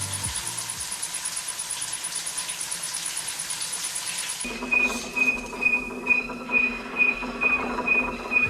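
Milling machine at work: a steady hiss, changing abruptly about halfway through to a steady hum with a short high chirp repeating about twice a second.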